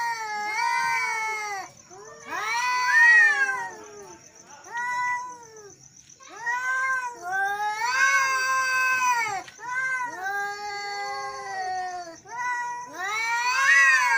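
Two male cats yowling at each other in an angry standoff: a series of long, wavering yowls that rise and fall in pitch, one after another with short gaps. A steady high-pitched tone runs underneath.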